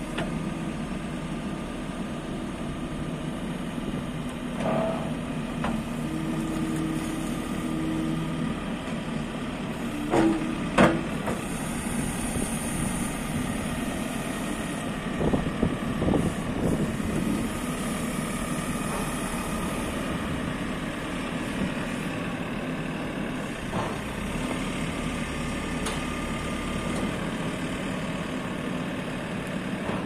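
JCB 4CX backhoe loader's diesel engine running steadily while the operator works the hydraulics, with a couple of sharp knocks about ten seconds in and a short cluster of clunks a few seconds later.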